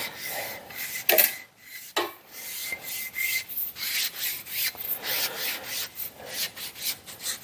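A Scotch-Brite abrasive pad rubbed by hand over a small metal part to deburr it, in quick back-and-forth strokes about three a second. A couple of short knocks come in the first two seconds, before the steady rubbing.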